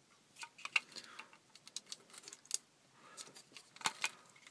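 Irregular light clicks and taps, a dozen or so scattered over a few seconds, from hands working small plastic interior-lamp parts, the loudest pair near the end.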